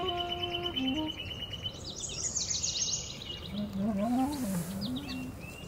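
A clarinet holds a note, then plays two short lower notes, over dawn-chorus birdsong: a steady high trill, then a burst of quick descending bird notes about two seconds in. Past the halfway point the clarinet comes back with a low phrase that bends and wavers in pitch.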